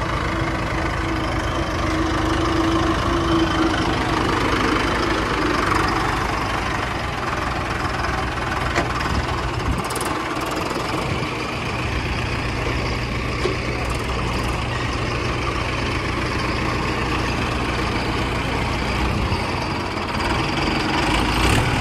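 Diesel tractor engine running loudly and steadily.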